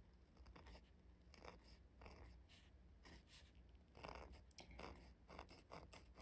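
Faint scratching of an ultra-flexible calligraphy dip-pen nib on paper, a string of short strokes as letters are written, over a faint low hum.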